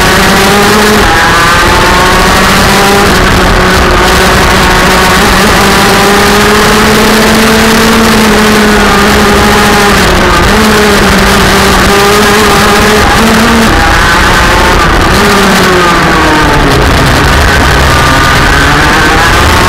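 Rotax Max DD2 125cc single-cylinder two-stroke kart engine at racing speed, very loud and close to the microphone. Its pitch holds high, dips briefly a few times and swoops down and back up near the end.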